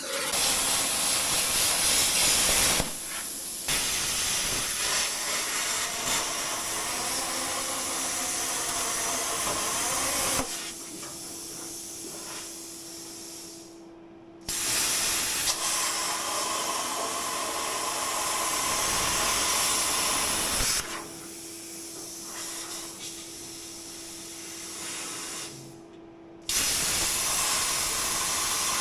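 Metal-cutting torch hissing as it cuts through a steel truck bed, in three long stretches of steady hiss. After each of the first two it drops to a softer hiss with a low hum, goes quiet, and starts again abruptly.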